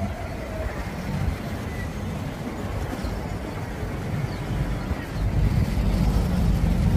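Steady low rumble of road traffic, growing louder about five seconds in.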